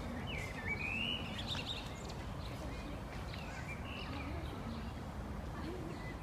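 Small birds chirping and twittering in short, wavering calls over a steady low background rumble of outdoor noise.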